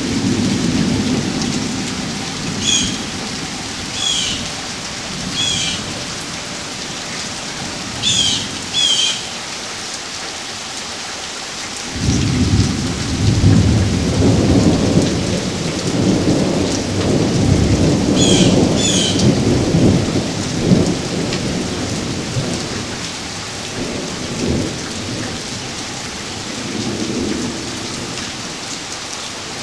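Thunderstorm with steady rain falling. Thunder rumbles low at the start, then a sudden loud peal about twelve seconds in rolls on for around ten seconds before dying away.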